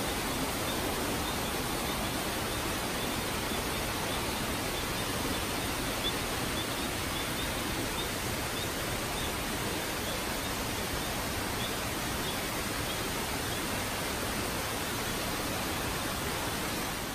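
A river cascading over stepped rock ledges in a small waterfall, giving a steady, even rushing of water.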